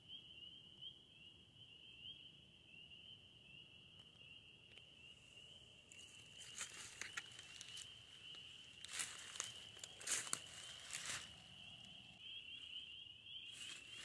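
Footsteps crunching through dry fallen leaves and twigs, starting about six seconds in, over a faint steady chorus of high, rising peeps from frogs in the woods.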